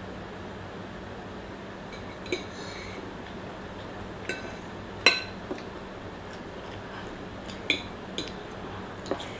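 Eating utensils clinking and tapping against a dish, about seven separate clinks at uneven intervals, the loudest about five seconds in.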